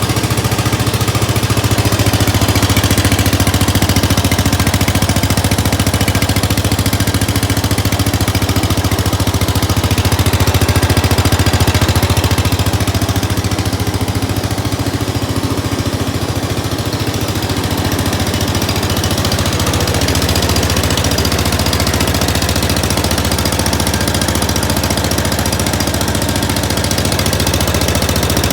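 Cub Cadet 107 lawn tractor's single-cylinder engine running steadily, a little quieter for a few seconds after the middle. It runs on a plain fuel valve, its plugged sediment bowl removed, with the ignition harness bypassed.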